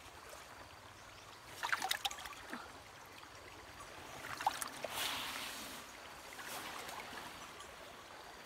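Water trickling and splashing, with a few brief splashes about two seconds in and again around the middle.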